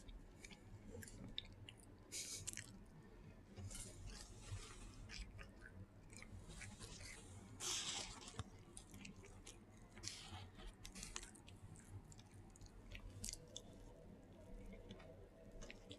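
Close-miked eating sounds: a person who wears dentures chewing Burger King chicken, with wet mouth clicks and soft, irregular crunches.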